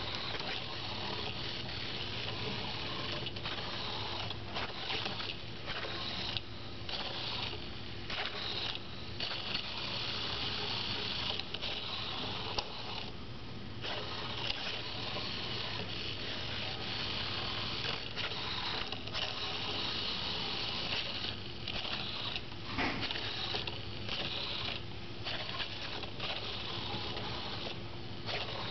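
Pololu 3pi line-following robot's small gearmotors whirring as it drives, cutting out for a moment many times as it stops to centre itself on the line.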